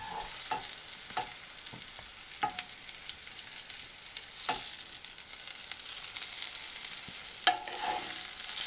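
Onions frying in hot oil in a pan: a steady sizzle with sharp pops at irregular intervals as the oil spits and makes pieces jump.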